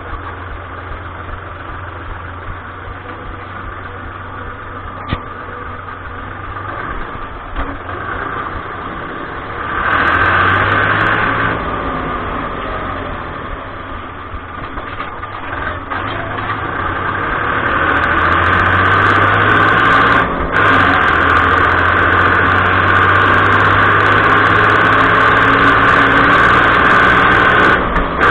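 Fiat 55-56 tractor's diesel engine running as the tractor is driven, heard from the cab. It grows louder briefly about ten seconds in, then climbs again and stays louder and steady through the last third.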